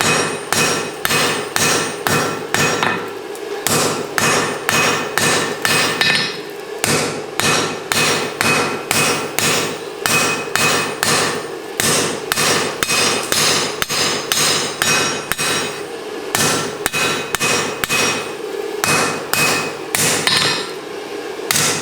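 Hand hammer striking hot mild steel on an anvil in a steady rhythm of about two to three blows a second, each blow ringing, with a few brief pauses: the smith is forging down the diagonals of the tong stock.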